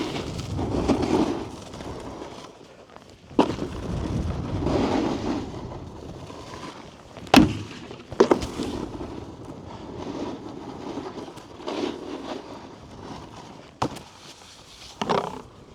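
Snowboard riding over packed snow: uneven scraping and hissing as the edges carve and skid, broken by about five sharp knocks of the board striking or landing.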